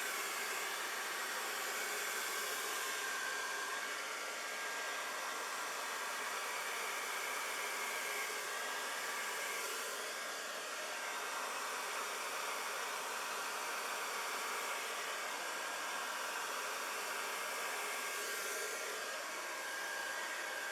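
Hair dryer on its cool setting running steadily, a rush of air with a faint high whine, as it blows wet pour paint across a canvas in a Dutch pour.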